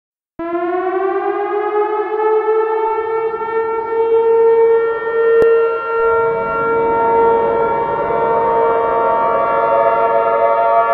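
Synthesized mix of outdoor warning sirens (a Whelen, an XT22 and two Thunderbolts) winding up one after another. The first rises from a low pitch to a steady tone within a few seconds. Others come in about three and six seconds in, layering into a spooky chord, with a brief click about five seconds in.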